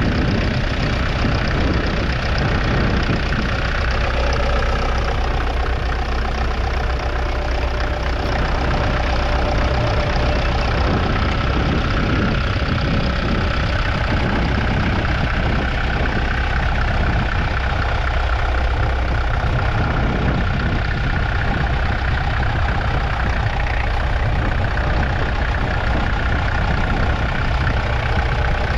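Massey Ferguson 65 MK1 tractor's 3.3-litre four-cylinder diesel engine running steadily.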